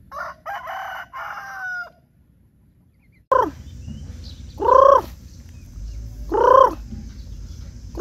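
A rooster crows once, in several parts with falling notes. After a short pause, chickens give a run of loud, drawn single calls about every second and a half.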